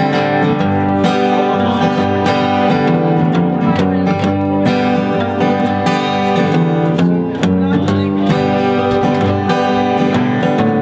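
Acoustic guitars strummed together, playing a steady rhythm of chords.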